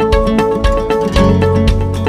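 Background music: a plucked string instrument playing quick, evenly spaced notes over a bass line.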